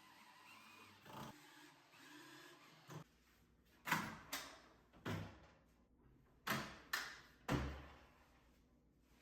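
A series of sharp knocks and clunks, about six in four seconds after a few softer taps, like wooden panels and hardware being handled and set down on the miter saw station.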